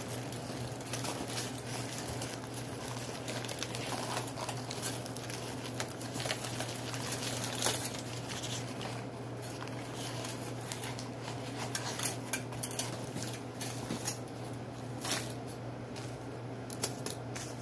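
Dry, chalky white chunks being broken and crumbled by hand, giving irregular crisp crunches and soft crumbling with bits pattering onto a powder pile on aluminum foil. A low steady hum runs underneath.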